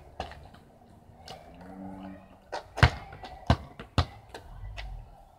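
A light plastic football being kicked and bouncing on concrete: a string of sharp thuds at uneven intervals, the loudest a little before the middle, followed by a few more in quick succession.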